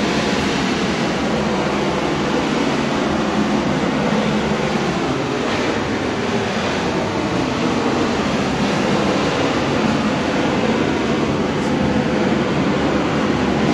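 A vehicle driving through a rock-cut tunnel: steady engine and tyre noise, with a few slow downward glides in pitch through the middle.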